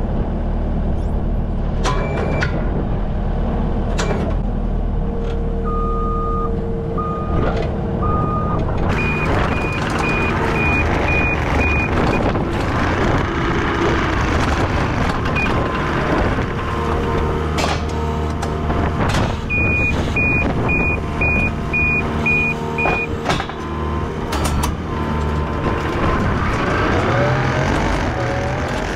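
New Holland compact track loader (skid steer) running, heard from the cab with its engine and hydraulics droning steadily and a few clanks. Its backup alarm beeps in two runs of about three seconds each, about a third of the way in and again past the middle as it reverses, and there are three lower beeps a little earlier.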